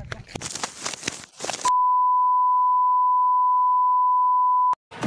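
A steady electronic beep tone at one unchanging pitch, held about three seconds and cut off abruptly. Before it, about a second and a half of noisy rustling and scuffling.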